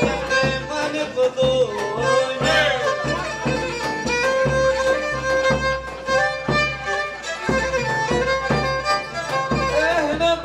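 Pontic lyra (kemenche) playing a folk dance melody, its sustained, slightly wavering bowed notes over a steady, evenly spaced beat.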